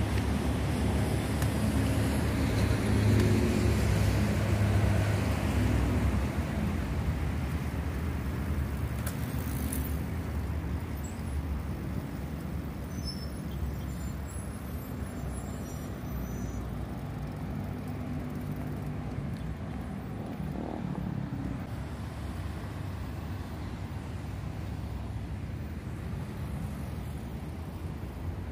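Biarticulated BRT bus's diesel engine running as the bus moves past, loudest a few seconds in and then slowly fading, over road traffic noise. A brief hiss about nine seconds in.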